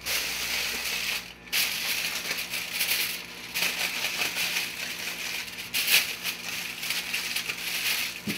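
Aluminium foil crinkling and rustling as it is pressed and folded down over the rim of a baking dish, with a brief pause about a second and a half in.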